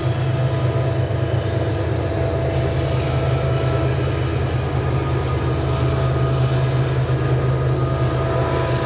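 Coal train's GE diesel-electric locomotives running, a steady low engine drone with a high whine held on several steady tones above it.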